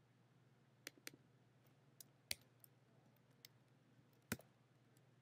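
Faint computer mouse clicks, about seven of them scattered irregularly over a low steady hum, the loudest one near the end.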